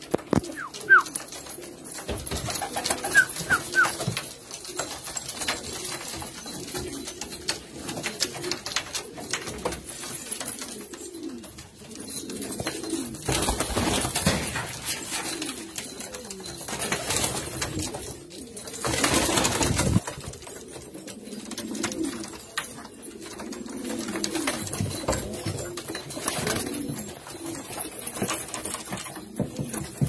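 Domestic fancy pigeons cooing over and over in a loft, several birds calling at once, with a couple of louder noisy bursts partway through.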